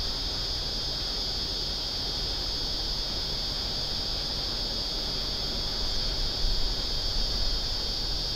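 Outdoor harbour ambience: a steady high-pitched insect buzz over a low rumble, a little louder about two thirds of the way through.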